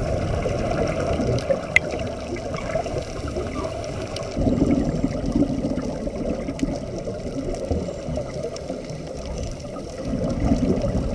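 Muffled underwater noise picked up through a camera housing, with the bubbling of scuba divers' exhaled breath. It swells louder about four seconds in and again near the end.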